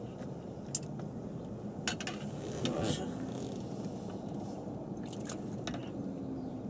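A few short sharp clicks and knocks from a fishing rod and reel being handled as a small fish is reeled in and lifted toward the boat, over a steady low rumble.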